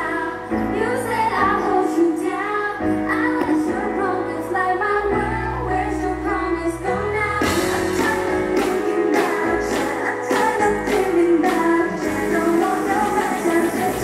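Pop music with female group singing over a drum beat and bass, played loud through a stage sound system.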